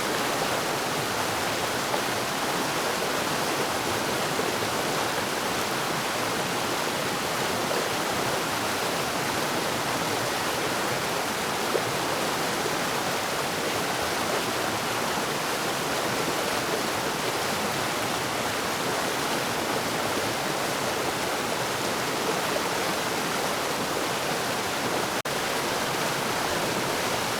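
Forest waterfall: falling and rushing water, a steady even rush with no change.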